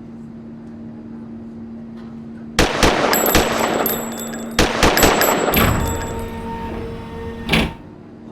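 Gunfire sound effect: a steady low hum, then a sudden loud burst of rapid shots with metallic clangs that fades out, and one more shot near the end.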